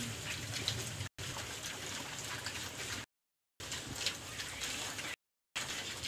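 Pigs snuffling and chewing feed scattered on a concrete pen floor: a low, even crackle with small clicks. The sound drops out completely three times for a moment.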